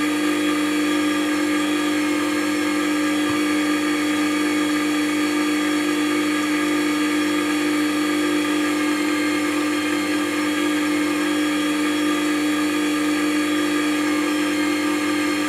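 Record Power WG250 wet stone sharpener's electric motor running steadily with its speed turned down, turning the grinding and leather honing wheels: a constant hum with a fainter whine above it.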